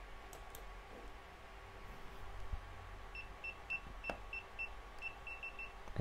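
Isurpass Z-Wave keypad beeping once for each key pressed as a PIN code is typed in: a run of short, high beeps, a few per second at uneven spacing, starting about three seconds in. Two faint clicks come near the start.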